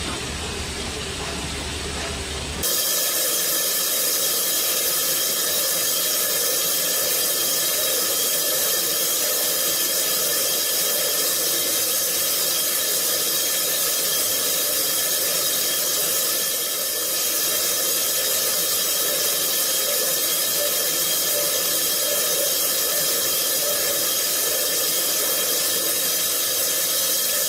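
Industrial machine tool running: after a lower hum, a loud steady hiss with several steady whining tones cuts in abruptly about three seconds in and holds without change.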